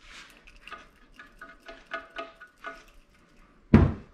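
Silicone grease being worked into the grooves of a urethane suspension bushing with a small screwdriver: a quick run of faint squeaky ticks. Near the end comes a single loud thump.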